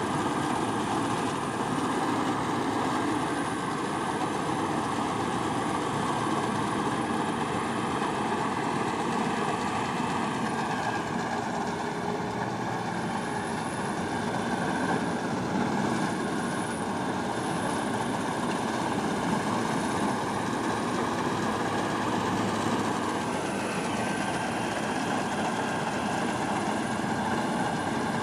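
Farm machine running steadily at work: a dense, even engine and mechanical noise with faint steady tones that shift slightly in pitch a little past two-thirds of the way through.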